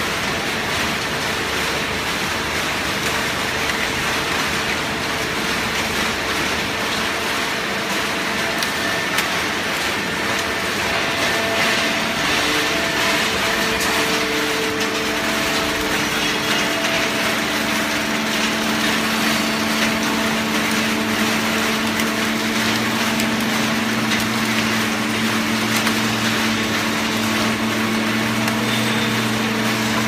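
Horizontal hydraulic baler running: a steady, loud mechanical noise from its hydraulic pump and motor, with a hum whose pitch shifts partway through and a lower hum that grows stronger in the second half.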